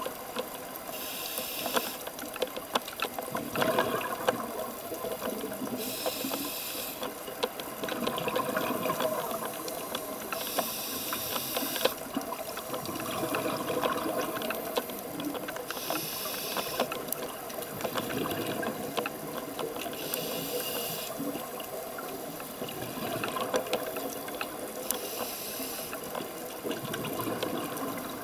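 Scuba diver breathing through a regulator, heard underwater: a hiss about a second long on each inhalation, six times at intervals of four to five seconds, with bubbling and crackling between breaths.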